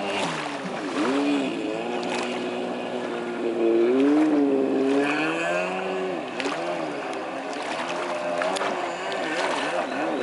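Kawasaki X2 jet ski's two-stroke engine revving as it runs across the water, its pitch rising and falling over and over, loudest about four seconds in.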